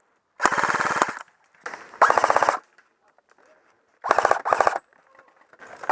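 An airsoft gun firing on full auto in several short bursts, each about half a second to a second long, with brief pauses between them.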